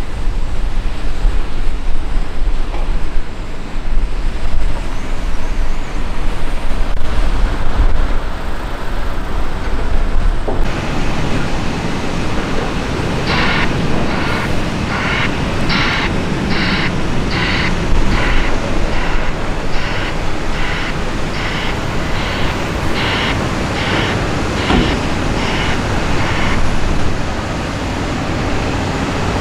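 Volvo L180H wheel loader's diesel engine running with a deep steady rumble as it works a pile of sugar beets. After that, heavy trucks run in the yard while a reversing alarm beeps about three times every two seconds for some thirteen seconds, then stops.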